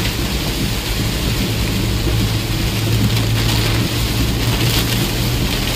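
Heavy rain hitting the windshield and body of a moving vehicle, over the steady low hum of its engine, heard from inside the cab.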